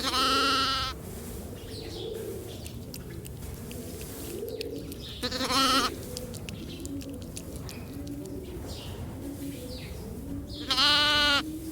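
Lamb bleating three times, each a short wavering call under a second long, about five seconds apart.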